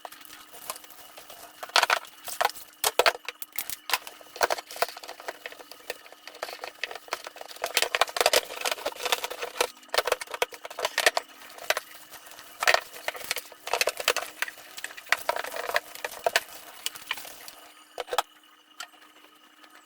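Household items being handled and set down in a kitchen: a quick, irregular run of knocks, clinks and rattles that stops shortly before the end, over a faint steady hum.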